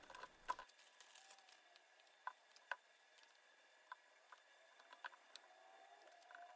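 Near silence, with a few faint, sharp clicks spread far apart.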